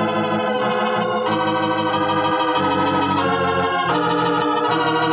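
Organ music playing slow, sustained chords that change about once a second: a musical bridge closing a scene of a radio drama.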